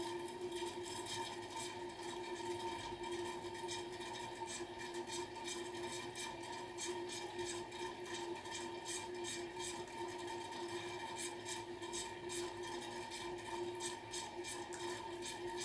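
A thin stream of water running from a bathtub tap while a cat laps at it, giving quick irregular wet ticks over a steady hum.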